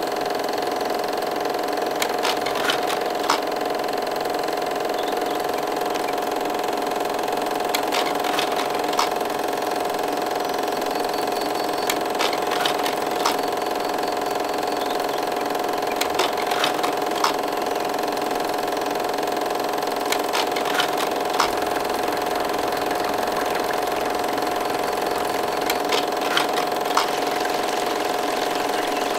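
A steady droning hum with several held tones, unchanging throughout, flecked with scattered faint clicks.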